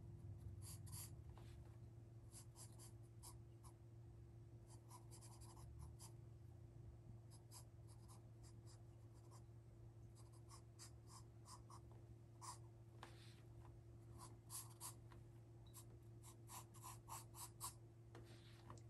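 Faint pencil strokes on paper: many short scratches as a horse's head is sketched, coming faster in the last few seconds, over a steady low hum.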